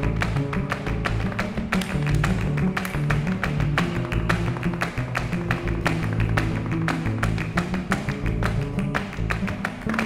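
Live flamenco music: rapid sharp strikes of a dancer's footwork and hand-clapping (palmas) over a low plucked double bass line.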